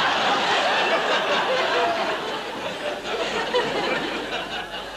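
Studio audience laughing, dying away over the last couple of seconds.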